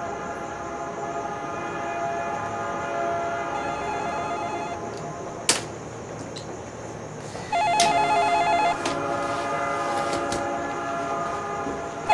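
A telephone rings once for about a second with a fast trilling ring, about seven and a half seconds in, over a steady drone of held chord-like tones. There is a single sharp click about five and a half seconds in.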